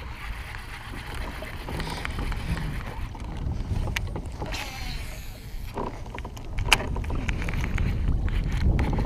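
A kayak on open water: steady low wind rumble on the microphone and water noise, with scattered light clicks and knocks and one sharper click about two-thirds of the way through.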